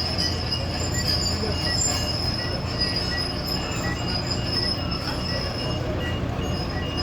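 Excavator's steel crawler tracks squealing and squeaking in a steady rhythm over the low hum of its running diesel engine as it travels.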